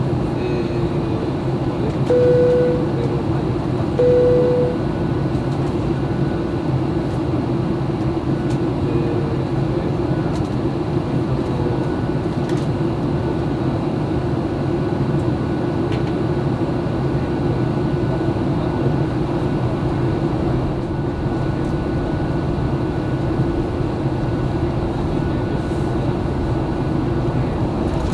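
Steady cabin noise of a Boeing 737-800 descending toward landing: engine and airflow noise with no let-up. Two short tones sound briefly about two and four seconds in.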